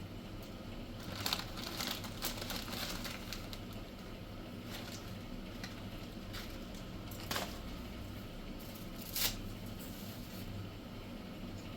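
Scattered rustling and handling noises with a few sharp clicks, over a low steady hum.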